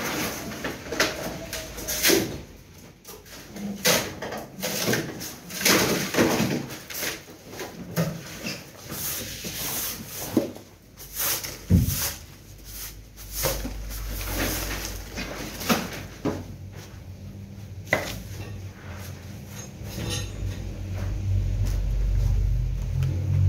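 A broom sweeping demolition debris: irregular scraping strokes with scattered knocks. A low steady rumble comes in about halfway and grows louder near the end.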